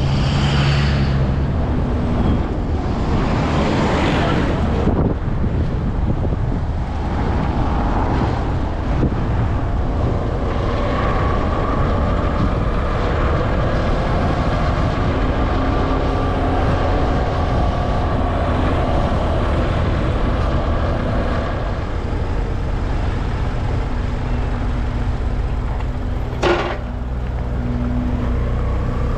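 Steady engine and road rumble of a vehicle being driven, with a faint whine through the middle and one brief sharp click near the end.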